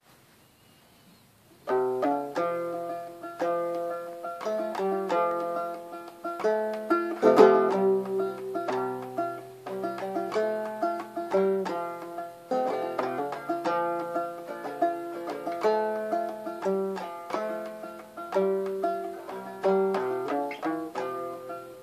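Banjo played clawhammer style, a steady rhythm of plucked, ringing notes in a bluesy folk tune. It starts about two seconds in, after a near-silent moment.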